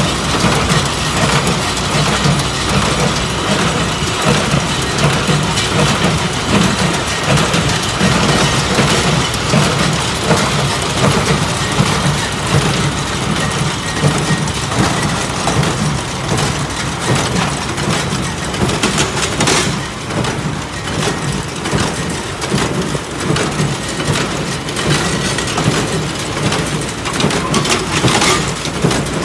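New Holland small square baler running in the hay field, driven through its PTO shaft by the tractor: a steady, loud machinery and engine drone.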